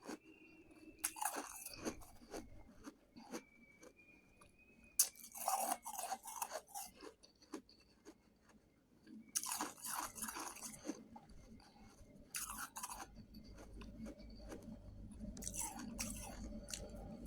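Shaved ice being bitten and chewed close to the microphone: clusters of crisp crunches every few seconds, with quieter gaps between.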